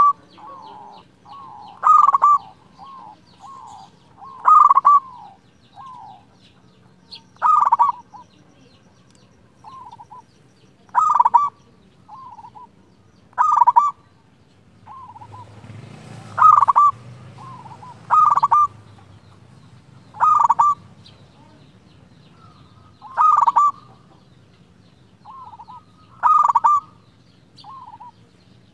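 Zebra dove (perkutut) cooing: a loud, accented phrase about every two to three seconds, some eleven times, with softer coos between them. A low rumble swells briefly about halfway through.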